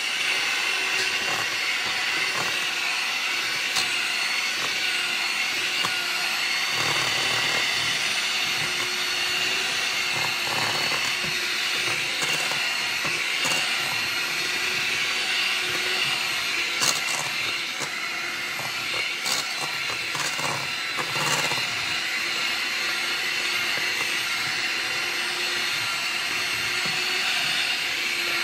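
Handheld electric mixer running steadily, its beaters creaming butter and sugar in a stainless steel bowl, with a few light clicks past the middle.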